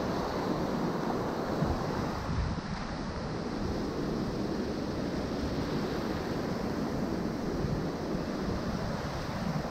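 Low surf breaking and washing in steadily, with uneven wind rumble on the microphone.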